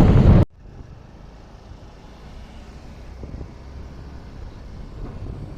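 Half a second of loud wind buffeting on the microphone, then a sudden cut to a low, steady vehicle rumble of a car on the road, heard from inside.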